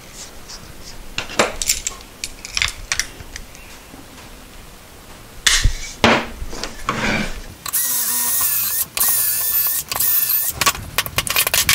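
Clicks and knocks of a pocket-hole clamp being set on poplar boards, then a cordless drill runs twice, each run about a second long with a steady motor whine, driving pocket-hole screws into the joint.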